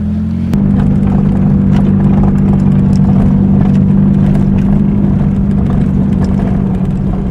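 Car engine running while driving over a rough dirt track, heard from inside the cabin; the engine note steps up in pitch and loudness about half a second in as the car speeds up. Light knocks and rattles from the bumpy road sound throughout.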